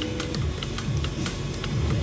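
Background music with a repeating low beat and light clicking percussion.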